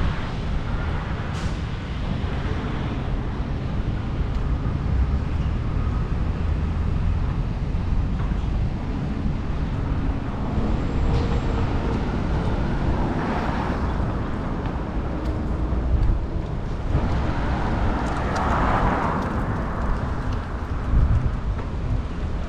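Street traffic and a steady low rumble heard from a moving bicycle, with passing vehicles swelling louder about halfway through and again from about 17 to 20 seconds in.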